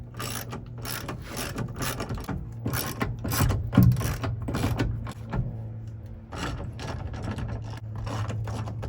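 Ratchet wrench clicking in short irregular runs, working the bolts of a truck's door striker.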